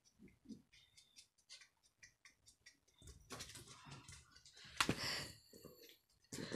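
Small dog's claws ticking faintly on a hardwood floor as it walks, with louder rustling and a sharp knock a little before the end.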